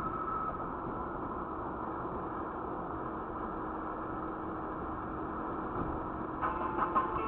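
Car driving at highway speed, heard from inside the cabin: steady road and engine noise. About six seconds in, an irregular light clicking rattle starts over it.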